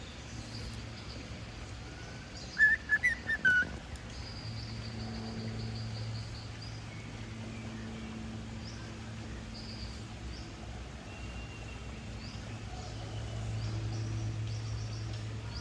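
Cockatiel chirping and whistling: a loud run of about four quick chirps about three seconds in, then fainter high chirps scattered through. A steady low hum runs underneath.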